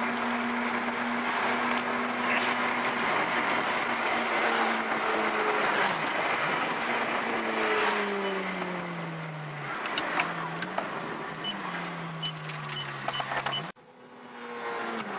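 Ferrari F430's V8 through a Meisterschaft race exhaust, heard from inside the cabin while driving. It holds a steady drone, then the revs fall away twice with a short rise between, and a few sharp pops come as they drop. Near the end the sound cuts off suddenly, then comes back rising.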